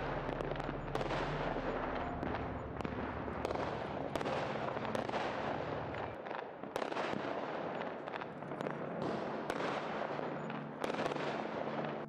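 Firecrackers going off: many sharp cracks and pops over a dense crackling hiss, with low steady tones underneath for the first half.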